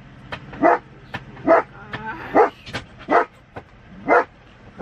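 German shepherd barking repeatedly, five sharp barks about one every second: alarm barking at someone outside the truck.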